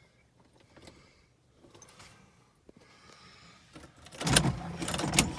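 Jaguar XJ6's straight-six engine being started after sitting for years: a few faint clicks, then about four seconds in the starter cranks and the engine fires into life with a sudden loud burst.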